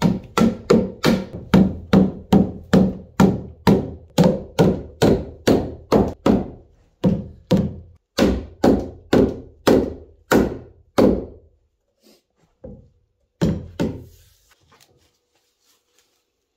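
White rubber mallet knocking on a pine stair string at the newel post joint: a steady run of solid wooden knocks, about two and a half a second for some eleven seconds, then a few last scattered knocks.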